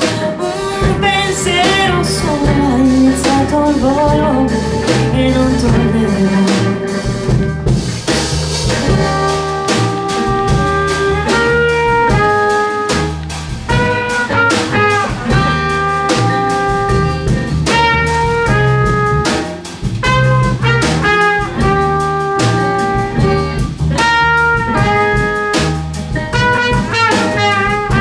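Small acoustic jazz band playing an instrumental passage: trumpet over banjo, upright double bass and drum kit.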